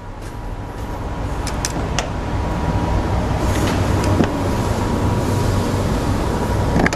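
A low, steady mechanical rumble like a running motor, growing louder over the first three seconds and then holding. A few light metal clicks, as the T-handles on the camper trailer's slide-out drawer are undone.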